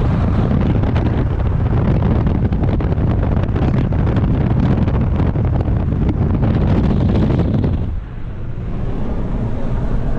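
Wind buffeting the microphone over the rumble of a moving vehicle, easing a little about eight seconds in.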